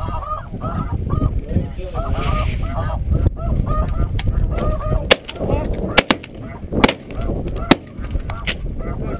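Snow geese honking: a steady chorus of short, repeated calls. Five or six sharp cracks cut through it in the second half, about one a second.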